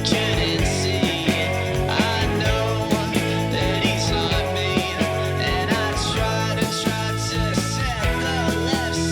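Rock music with a steady drum beat and guitar, possibly with some singing.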